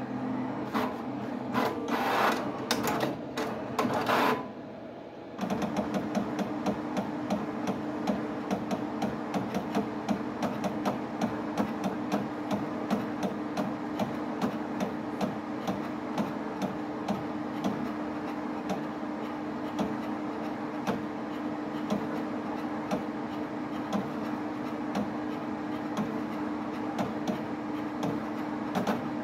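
HP 7550A pen plotter drawing: its drive motors whir as the pen carriage and paper shuttle back and forth. Loud quick moves fill the first four seconds, a brief lull follows, then a steady hum with rapid clicking carries on.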